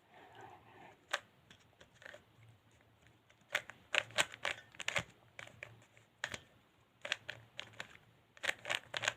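Plastic 3x3 Rubik's Cube being turned by hand: sharp plastic clicks in quick irregular clusters, with short pauses between the runs of turns.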